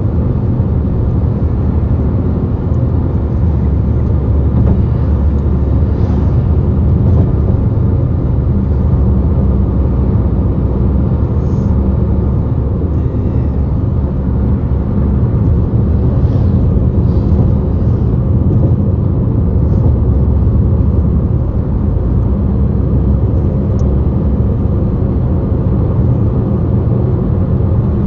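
Steady low rumble of a bus under way, heard from inside the cabin: engine and tyre noise on the road, with a few faint rattles.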